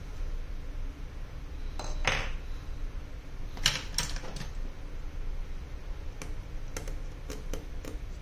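Scattered small clicks and taps, with a short scrape about two seconds in, from hands and a small pry tool working on the internals of an opened iPhone 11 Pro near its loudspeaker, over a low steady hum.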